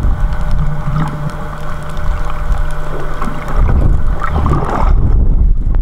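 Muffled underwater rumble of water moving against a diving camera's waterproof housing. A faint steady hum runs under it and stops about halfway through, and the sound grows duller near the end.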